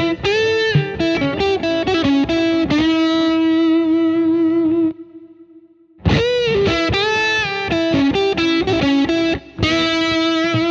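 Electric guitar playing a blues lick on the B and G strings, with bent notes and each phrase ending on a held, sustained note. The lick is played twice, with a short gap about five seconds in.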